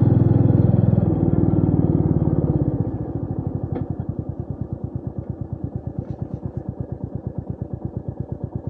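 Royal Enfield Meteor 350's single-cylinder engine running under way, then dropping about three seconds in to a slow idle where each exhaust beat is heard separately.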